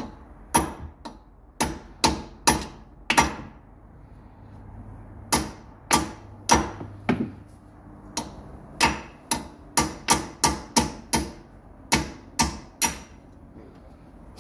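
Hammer blows on a steel wheel stud, driving a new extended stud into the wheel hub: about twenty sharp strikes in uneven runs, with a short pause part way through.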